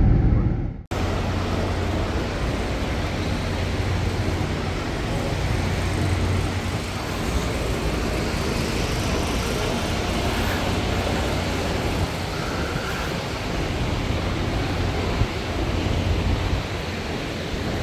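Steady ambience of an airport terminal hall: an even hiss over a low hum, with no clear voices or events standing out.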